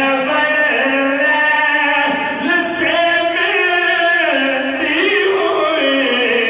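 Two men singing a devotional Urdu kalam (naat/manqabat) into hand microphones, in long held notes that bend up and down.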